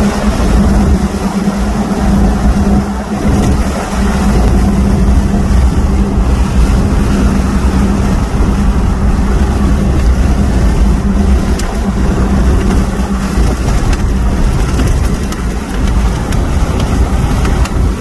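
Car driving along at road speed, heard from inside the cabin: steady road and wind noise with a low hum that is strongest in the first few seconds.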